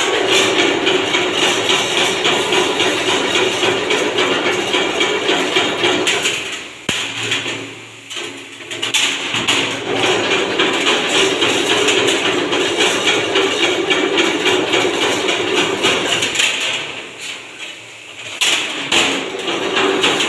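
Chain-link (jaali) wire mesh machine running, its forming head spinning wire into a zigzag spiral with a steady mechanical noise. It stops briefly twice, about seven and seventeen seconds in, then starts again.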